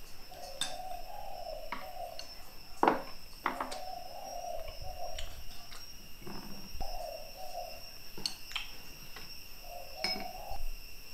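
Chopsticks and ceramic plate and bowl clinking and knocking as the dishes are put down and gathered from the table, about eight knocks with the loudest about three seconds in. A dove coos repeatedly in the background.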